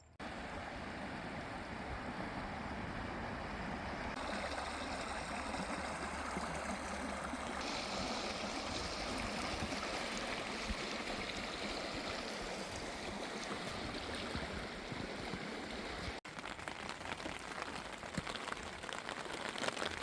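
Steady rushing hiss of water, interrupted by a few edits. After a cut about sixteen seconds in, rain falling on a surface, with many small drop hits.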